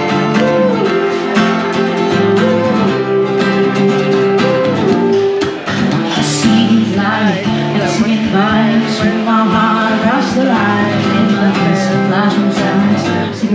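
Live acoustic set: a woman singing into a microphone while playing an acoustic guitar, amplified through a small PA, with long held sung notes over the guitar.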